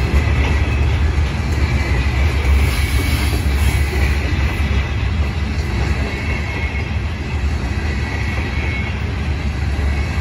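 Loaded ballast hopper cars of a freight train rolling past: a steady low rumble of wheels on rail, with a faint high-pitched squeal coming and going.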